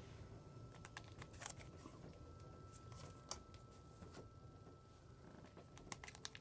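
Near silence in a small room, broken by scattered faint clicks and light rustles, as of something being handled, over a faint steady high hum.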